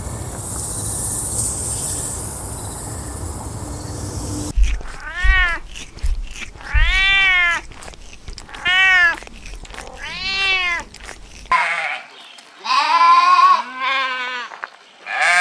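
A few seconds of steady background noise, then a cat meowing over and over, about one rising-and-falling meow a second. About 11 seconds in, the sound changes to higher, wavering animal calls.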